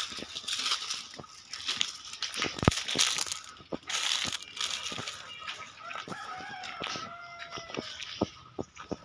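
Footsteps swishing and crunching through tall grass and weeds, with a rooster crowing once about six seconds in, a long held call lasting under two seconds.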